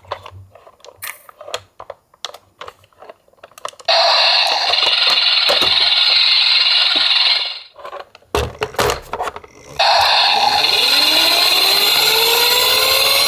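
Small die-cast toy cars clicking and rattling against each other. Then a loud steady whirring cuts in for about three and a half seconds and stops. After a few more clicks it starts again, with a rising whine climbing alongside it near the end.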